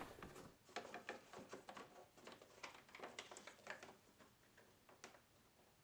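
Faint rustling and small plastic clicks of hands handling wiring and pushing electrical connectors together, scattered irregularly.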